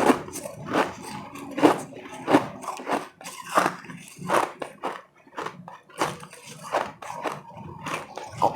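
Powdery ice being bitten and chewed close to the microphone, with about a dozen crisp crunches at an uneven pace of roughly one every half second to second.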